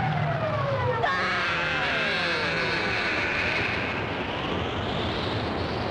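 Animated sound effect of a fall down a cliff: several whistling tones gliding down in pitch over a noisy rumble, with a sharp crack about a second in.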